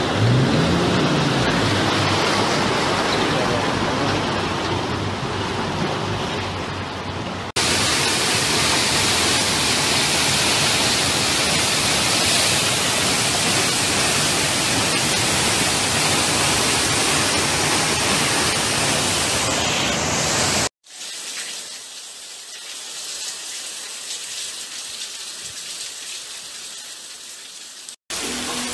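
Rushing floodwater and heavy rain, a loud steady hiss of water noise. Near the start a truck wades through floodwater, splashing. The noise breaks off abruptly twice, dropping to quieter rain for several seconds before turning loud again near the end.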